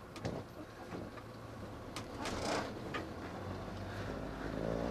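Inside a camper van's cab while driving in heavy rain: steady engine and road noise, with a few sharp clicks and a short swish about two and a half seconds in as the windscreen wipers sweep. The engine hum grows louder near the end.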